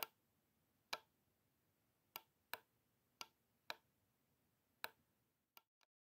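Computer mouse button clicking: nine sharp single clicks at uneven intervals, the last two fainter near the end.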